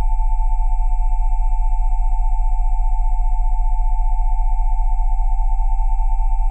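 Electronically generated sine tones held steady and unchanging: a cluster of high tones (727, 787 and 880 Hz) sounding together over a very deep 20 Hz tone, their combined loudness fluttering in a fast, even pulse.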